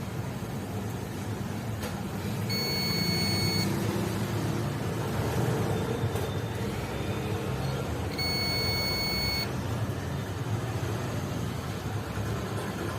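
Two long, high electronic beeps, each a little over a second, about six seconds apart, over a steady rumbling background noise.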